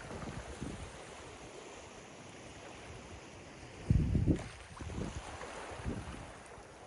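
Ocean surf washing on a beach as a steady hiss, with wind buffeting the microphone in low rumbles; a strong gust hits about four seconds in.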